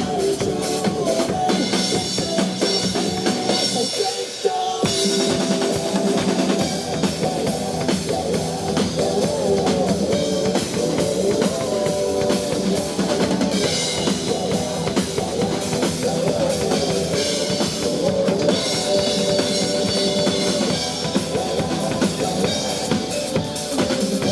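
Drum kit playing a driving pop-rock beat with kick, snare and rimshots over a backing track. The bass and kick drop out briefly about four seconds in, then the full groove comes back.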